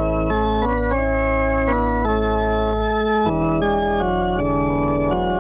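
Organ playing a slow theme in sustained chords over a held bass note. The chords change every half second or so, and the bass shifts about three seconds in.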